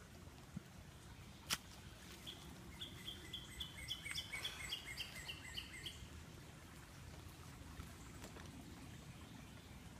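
A bird calling a quick run of short repeated notes, about four a second for some three seconds, over a faint steady outdoor hiss. A single sharp click comes just before the calls.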